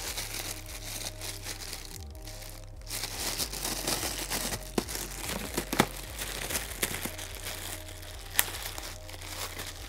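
A thin clear plastic bag crinkling and rustling as a packaged plastic container is pulled out of it, with a few sharper crackles in the middle and near the end. A steady background music bed runs underneath.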